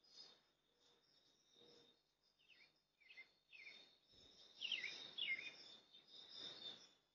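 Faint outdoor ambience of birds chirping, a string of short falling chirps that grows busier in the second half, over a steady thin high-pitched tone and a soft rush of background noise.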